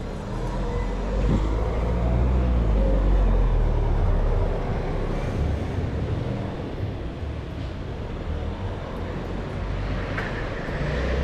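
Motor vehicle passing on a city street, a low engine and tyre rumble that swells over the first few seconds and then fades back into general street noise.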